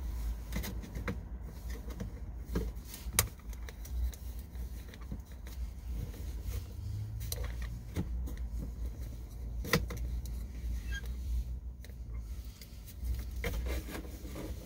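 Handling noises from fitting a car net pocket handbag holder around the centre console: scattered clicks and knocks, a handful over several seconds, over a steady low rumble.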